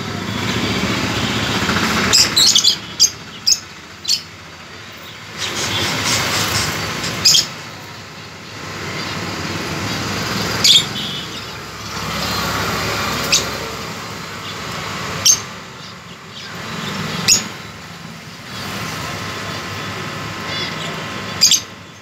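Peach-faced lovebirds giving short, shrill chirps: a quick cluster a couple of seconds in, then single chirps every two to three seconds. Underneath, a louder background noise swells and fades, like passing traffic.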